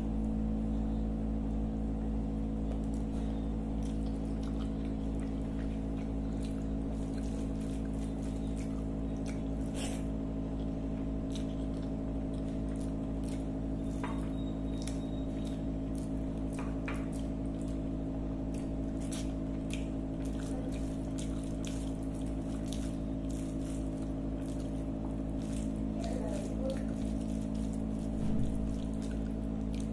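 Fingers squishing and mixing rice with curry on a plate, with scattered small wet clicks, over a steady low hum.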